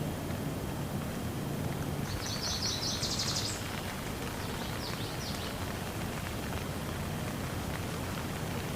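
A songbird sings one rapid trill of high notes about two seconds in, followed by a few fainter notes, over a steady rushing noise.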